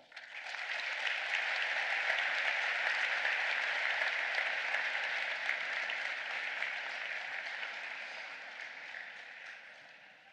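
Audience applauding: it swells up within the first second, holds steady, then slowly dies away toward the end.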